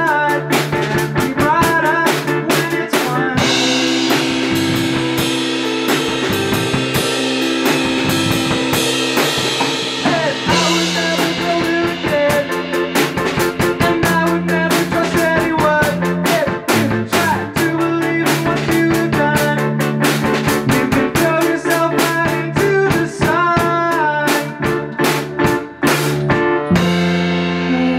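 A rock band playing live: a drum kit keeping a busy beat of snare and cymbal hits over electric guitar and bass, with some bent guitar notes. The drumming drops out near the end while the guitar and bass ring on.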